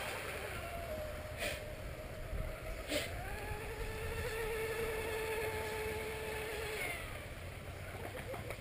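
Distant radio-controlled rigger racing boat running at speed, its motor a thin steady whine that shifts in pitch about one and a half and three seconds in, then fades near the end. Two sharp clicks about a second and a half apart.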